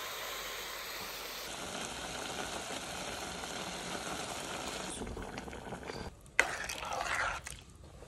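Chopped tomatoes, peppers and onions frying in a pot, a steady sizzling hiss. About five seconds in the sound changes: a sharp knock, then a brief wet sound from the sauce.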